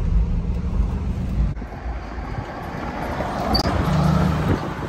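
Chevy truck engine and road noise heard inside the cab, a steady low rumble; after a cut about a second and a half in, outdoor traffic noise with a brief high chirp near the middle.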